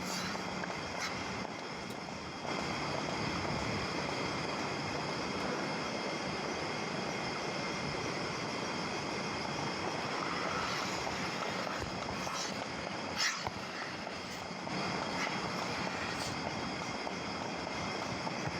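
Steady machine noise with a few faint high whining tones running through it, with scattered clicks and a sharper knock about 13 seconds in.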